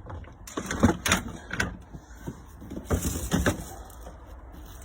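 Knocks and clatter of a yellow shampoo vacuum machine being lifted and handled: a run of sharp knocks about a second in and another around three seconds in.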